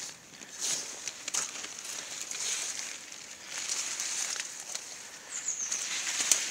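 Rubber boots stepping through wet forest mud and leaf litter, a squelch with each step, several steps about a second apart.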